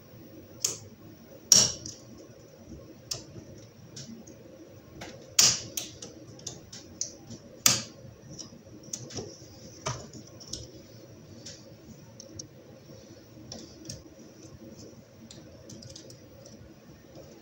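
Irregular sharp metallic clicks and taps of circlip pliers and a snap ring being worked into the yoke of a propeller-shaft universal joint, fitting the retaining ring over a cross bearing cup. The loudest clicks fall in the first eight seconds, with lighter ones after.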